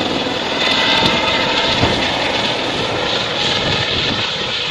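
Light helicopter flying low overhead and banking away: a rapid beat of rotor blades over steady engine noise, loudest about a second in.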